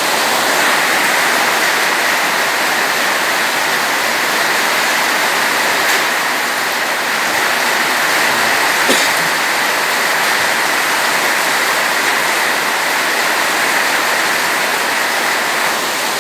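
Heavy rain pouring down steadily in a constant hiss, splashing onto a flooded concrete courtyard.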